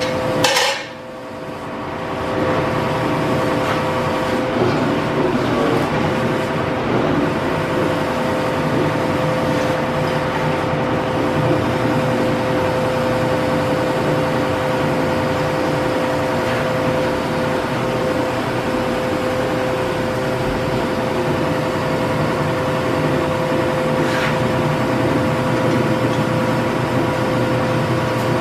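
A metal clank about half a second in, then a metal shaper running steadily from about two seconds on: an even mechanical hum with a few steady tones.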